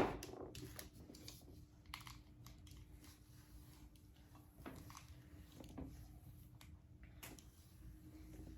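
A sharp knock at the very start, then faint scattered taps and rustles of small objects being handled.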